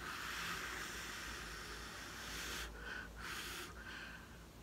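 A person blowing through pursed lips onto wet poured acrylic paint on a canvas: one long breath of rushing air, then two shorter ones.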